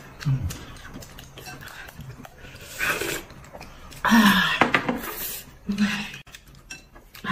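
Eating at the table: slurping from a spoon and bowl, with light clinks of a spoon and chopsticks against a glass cup and a bowl. A short vocal exclamation comes about four seconds in.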